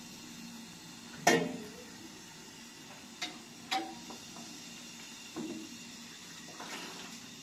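Metal kitchenware handled at a gas stove: one loud sharp metal clank about a second in that rings briefly, then a few lighter clicks and knocks.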